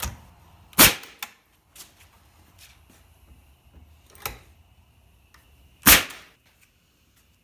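Central Pneumatic 21-degree pneumatic framing nailer firing two nails, each a single sharp bang about five seconds apart, with a few lighter knocks in between.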